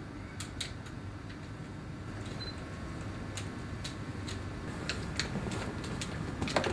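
Light, irregular clicks of keys or buttons being pressed, a dozen or so, coming more often near the end, over a steady low hum.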